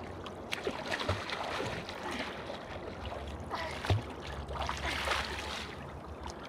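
River water splashing and sloshing around a small raft, with irregular splashes and a sharp knock about four seconds in.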